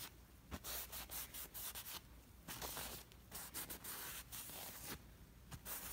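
A blue paper shop towel rubbed briskly over an engine's main bearing cap to clean it: a dry scrubbing hiss in about three bouts, with short pauses between.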